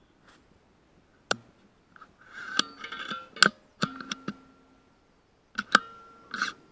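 A series of sharp clicks and clanks, irregularly spaced and thickest in the middle, several of them ringing briefly with a metallic tone.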